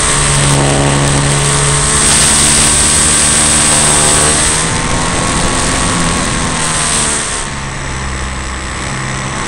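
Motor and propeller of a radio-controlled Piper model plane heard from a camera on board, with wind rushing over the airframe. The motor's pitch glides up and down as the plane dives and climbs, and the sound drops a little about seven and a half seconds in.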